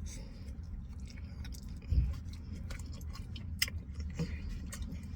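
A person chewing food close to the microphone, with scattered soft wet mouth clicks and a low bump about two seconds in.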